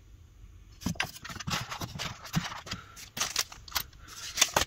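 Hands handling a metal scope clamp adapter and plastic wrapping in a foam-lined cardboard box: irregular scraping, rustling and clicks, starting about a second in.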